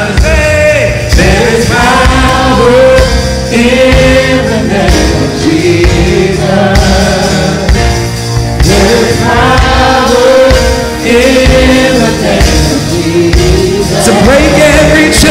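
Live gospel worship music: singers with a full band, sung melody over steady bass and drums.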